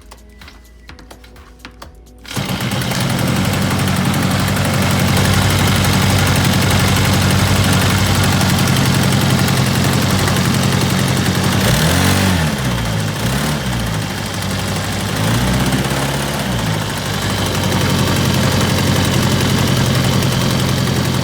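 Small 35cc four-stroke grass-trimmer engine driving a homemade boat, running steadily at high revs; it starts abruptly about two seconds in, its pitch dips and recovers a few times around the middle, and it cuts off suddenly at the end.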